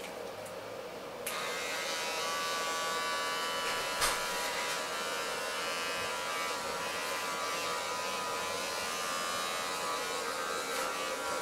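Electric hair clippers switched on about a second in, then buzzing steadily as they cut hair, with one sharp tap about four seconds in.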